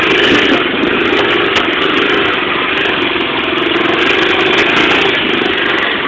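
Honda FourTrax 300 ATV's single-cylinder four-stroke engine running steadily, its pitch wavering slightly, while the quad is ridden along a trail.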